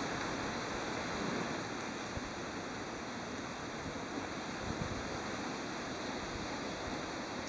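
Steady rushing outdoor noise, with a few faint soft knocks and no barking or growling.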